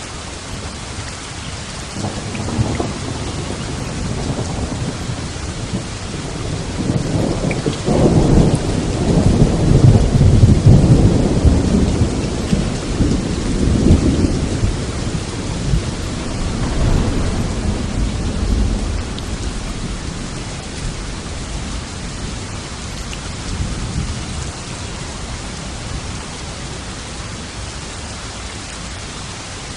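Steady heavy rain with a long roll of thunder: the rumble builds a couple of seconds in, cracks loudest about eight seconds in, rolls on in waves and dies away in the second half, leaving the rain hiss.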